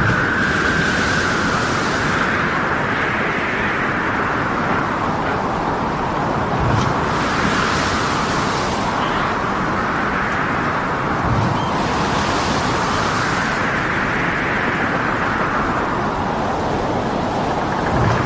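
Storm at sea: a steady roar of wind and heavy water, with a whistling wind tone that swells up and down in slow waves, surges of hiss every few seconds, and a few dull low thuds.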